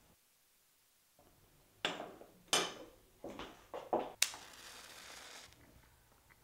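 Handling noises: after a near-silent first second, a run of five or six knocks and scrapes, then a sharp click about four seconds in followed by a short hiss that stops after about a second.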